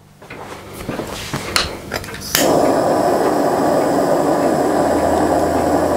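A few handling clicks and knocks, then a handheld gas blowtorch lights with a click about two seconds in. It burns with a loud, steady rushing noise for about three and a half seconds, held to a methylated spirit burner to light it, then cuts off suddenly.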